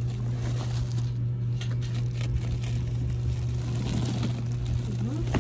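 A steady low hum runs throughout, with soft, scattered rustling of clothes and packaging being handled.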